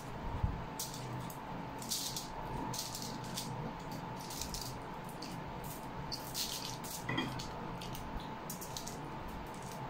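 Close-miked eating sounds: wet chewing, lip smacks, slurps of noodles and sips from a mug, in irregular short crackly bursts over a faint steady hum.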